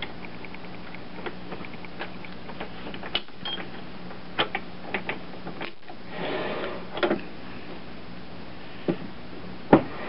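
Metal lathe running with a steady hum while a drill in the tailstock is hand-fed into the stock to machine a replacement bearing. Scattered metallic clicks and ticks, a brief rasp of cutting about six seconds in, and a sharp knock near the end, the loudest sound.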